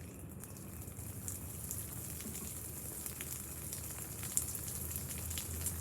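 Water splashing and spattering onto a ceiling fan: a steady hiss with many small drips and patters that grows slowly louder.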